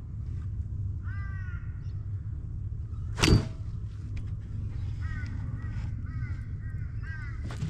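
A bird calling with short, falling, crow-like calls, once about a second in and then several times in a row near the end. A single sharp knock about three seconds in is the loudest sound, over a low steady rumble.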